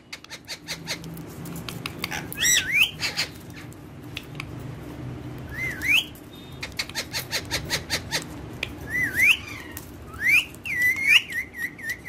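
Indian ringneck parakeet whistling: several short rising whistles, the last one breaking into a wavering trill near the end, among rapid sharp clicks.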